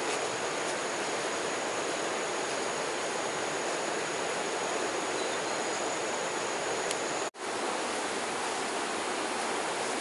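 Steady rushing of running water. The sound cuts out for an instant about seven seconds in, and a faint high whine stops there.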